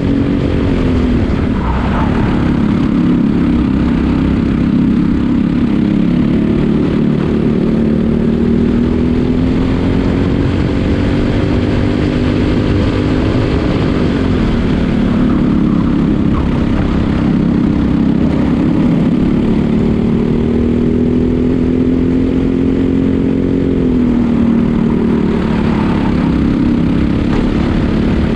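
Briggs & Stratton LO206 single-cylinder four-stroke kart engine at race pace, heard from on board. The engine note sags as it slows for corners about a second in, midway and near the end, then climbs back steadily under full throttle.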